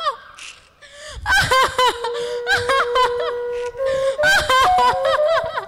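Short vocal sounds over a flute that comes in about a second in and holds long, steady notes.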